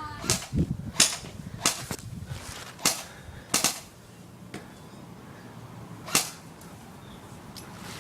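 Airsoft guns firing single shots, about six sharp cracks at uneven intervals, most of them in the first four seconds and the last about six seconds in.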